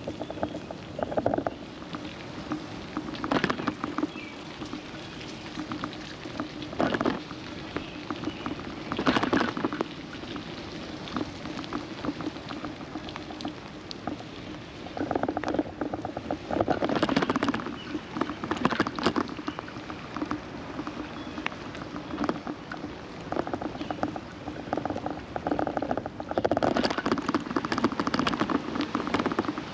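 Rain pattering and crackling on the camera in uneven bursts a second or two long, over a steady low hum.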